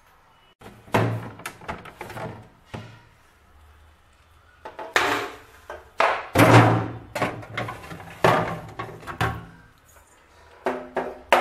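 Plastic fridge trays knocking and rattling as they are pulled out and handled, in several bursts of thuds and clatter.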